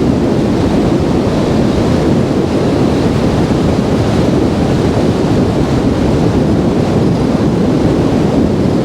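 Strong wind buffeting the microphone, a loud, steady, low rumble.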